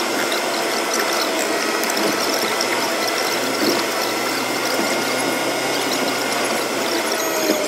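Car driving noise picked up by a dashcam and played back many times faster than real speed, so the engine and road noise becomes a steady, even, high-pitched rasp with almost no low rumble.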